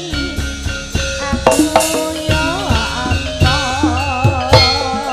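Javanese gamelan music for tayub dancing: regular hand-drum (kendang) strokes under a woman's ornamented, wavering sung melody.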